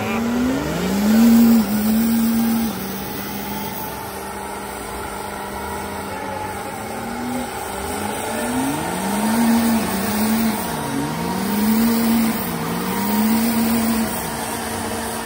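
Mega truck engines running at high revs during a tug-of-war pull, the pitch climbing sharply about a second in, then rising and falling several times near the end as the tyres spin.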